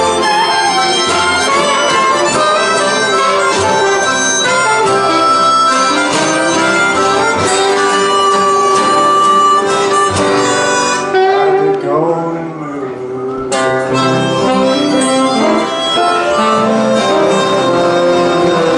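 Live acoustic blues: a harmonica played through a microphone leads over strummed acoustic guitars and upright bass. The band thins out for a couple of seconds midway, then comes back in full.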